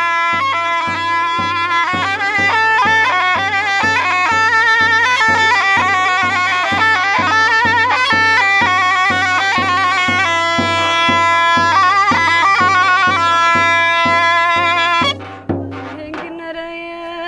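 Zurna, a Turkish double-reed shawm, playing a folk melody of long held notes and quick ornamented runs over a steady low beat of about two a second. The music stops about fifteen seconds in.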